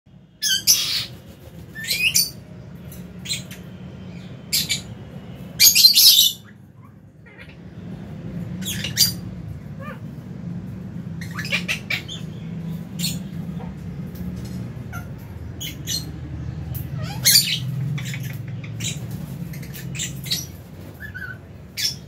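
Lovebirds giving a dozen or so short, sharp, shrill calls at irregular intervals, the loudest near the start and around six seconds in, over a low steady hum.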